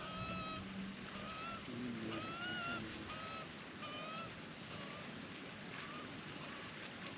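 Juvenile Australian magpie begging: short, harsh, nasal calls repeated about once a second, fainter in the second half.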